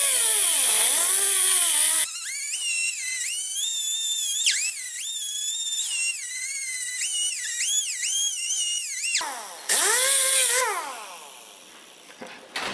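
Pneumatic cutoff tool with a small cutoff wheel trimming a protruding Helicoil thread insert flush. It gives a loud burst of whine and air hiss at the start and again about ten seconds in. Between the bursts a quieter whine rises and falls in pitch as the wheel bears on the metal, and near the end it spins down with a falling pitch.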